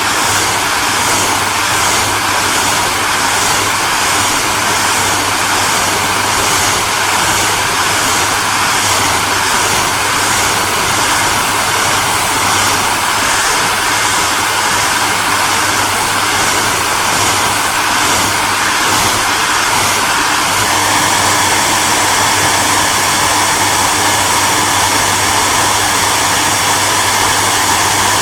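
Hair dryer running steadily: a constant rush of blown air over a low motor hum, its tone shifting slightly about three quarters of the way through.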